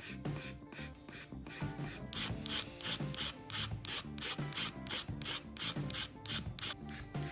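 Hand filing on plastic: a file rasping back and forth in even strokes, about three a second, over quiet background music.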